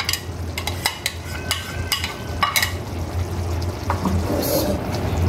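Beef curry bubbling and sizzling in a steel karahi on high heat as beaten yogurt is tipped in from a cup, with a run of short sharp clicks and taps against the pan. A steady low hum runs underneath.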